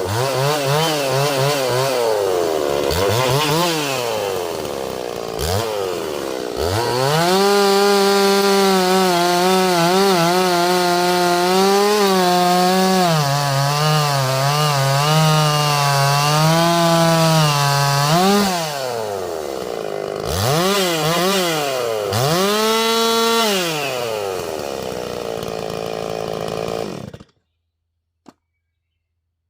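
Holzfforma G366 two-stroke chainsaw revved up and down several times, then held at high revs for about ten seconds with the pitch dipping and recovering as it cuts wood. It revs twice more, settles lower, and cuts off suddenly near the end.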